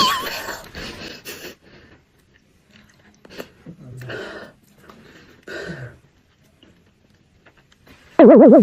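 Soft, scattered chewing and mouth sounds of someone eating seafood. Near the end a loud, warbling comic sound effect cuts in, wobbling rapidly in pitch.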